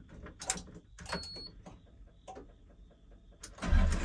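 A few clicks and knocks in the cab of a Sany SY35U mini excavator and a short high beep as the key is switched on, then near the end its diesel engine starts up and runs.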